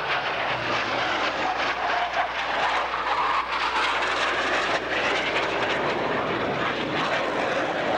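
Blue Angels F/A-18 Hornet jets flying past: a loud, steady jet roar with an engine whine that glides upward in pitch partway through.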